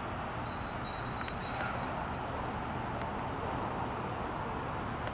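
Steady outdoor background noise, an even hiss and rumble, with a few faint high ticks and a faint thin tone in the first couple of seconds.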